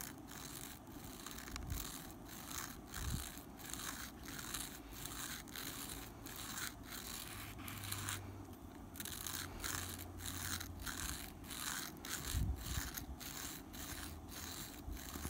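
Steel carburettor jet needle from a Yamaha RXZ being rubbed back and forth on 1000-grit sandpaper to reshape its taper. It makes a faint, rhythmic scratching of about two strokes a second, with a short pause about eight seconds in.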